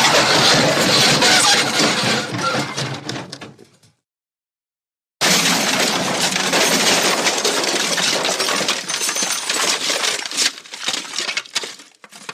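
Two crash sound effects in a row. The first is a crash whose clattering debris thins out and fades over about four seconds. After a second of dead silence, a second crash starts suddenly, and its rattling debris dies away over about seven seconds.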